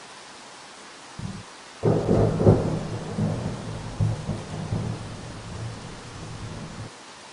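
Thunder over steady rain: a brief low rumble about a second in, then a loud clap that rolls on as a rumbling peal for about five seconds, fading and then cutting off suddenly, while the rain hiss carries on.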